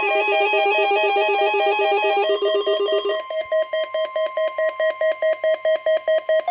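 Electronic alert tones announcing a NOAA Weather Radio required weekly test: a fast two-pitch trill that changes about three seconds in to a rapid pulsing beep with a steady higher tone under it.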